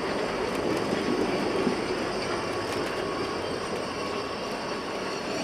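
Narrow-gauge passenger coaches rolling past on the track: a steady rumble of wheels on rail with a few sharp clacks and a thin, steady high squeal from the wheels.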